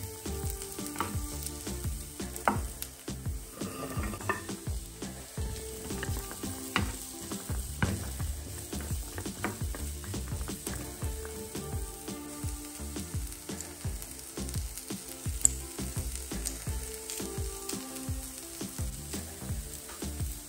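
Diced onion, celery and carrot sizzling in oil in a nonstick frying pan, stirred with a wooden spatula that scrapes and taps on the pan, with a few sharper knocks.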